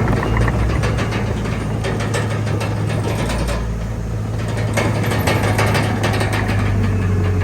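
Komatsu D31PX bulldozer's diesel engine running steadily with a deep, even hum, with many sharp clicks and rattles over it.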